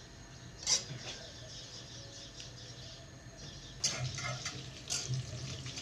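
Butter melting in a hot pot with a faint sizzle and crackle, stirred with a spoon that clicks against the pot three times: about a second in, and twice more near the end. A low steady hum sits underneath.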